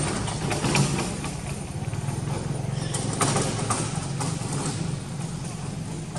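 A steady low engine rumble, with scattered crackles over it.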